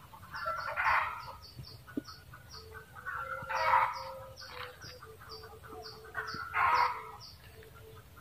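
Red junglefowl cackling: loud chicken-like calls in three bursts, roughly every three seconds.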